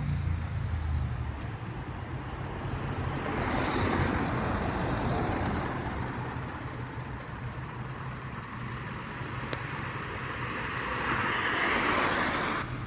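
A single-deck diesel bus passing close by and pulling away, its engine and tyre noise loudest about four seconds in, then fading. Road noise from another vehicle rises again near the end.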